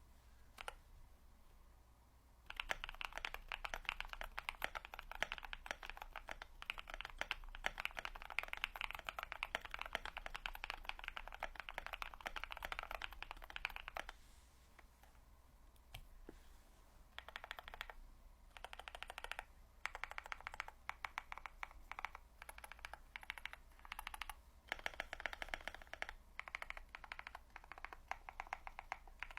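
Typing on a KBD67 Lite mechanical keyboard with a POM plate, lubed Cream linear switches and MT3 keycaps. A couple of seconds in, a fast, steady run of keystrokes lasts about eleven seconds. After a pause of a few seconds, shorter bursts of typing follow with brief gaps between them.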